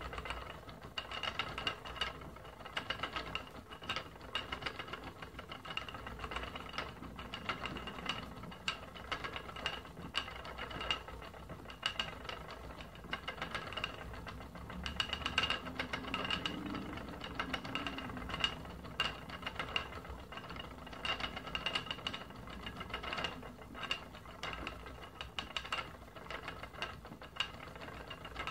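Wooden spinning wheel running steadily as merino wool is spun, its turning wheel, flyer and bobbin giving a regular, rhythmic clicking and rattling.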